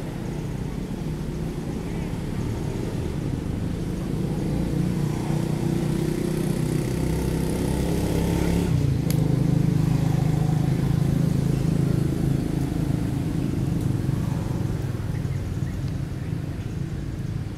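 A motor vehicle's engine passing by: its hum grows louder to a peak about nine seconds in, drops in pitch as it goes past, then fades.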